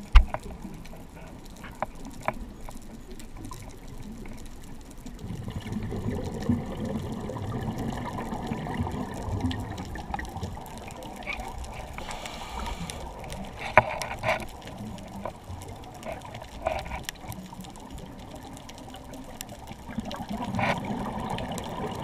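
Scuba regulator exhaust bubbles gurgling, heard underwater through the camera's waterproof housing: a long burst of bubbling about six seconds in and another near the end, with scattered sharp clicks.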